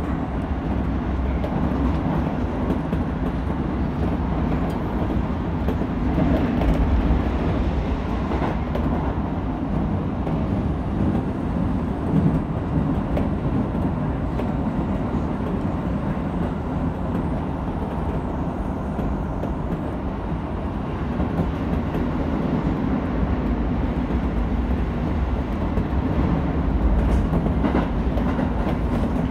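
Keisei 3000 series electric train running along the line, heard from inside its front car: a steady rumble of wheels on the rails and the running gear that swells and eases slightly as it goes.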